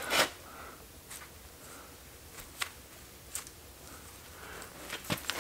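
A long metal hinge, its barrel ends tack-welded to the pin, being handled and worked by hand: a sharp snap right at the start, then a few faint, scattered clicks, with a couple more near the end.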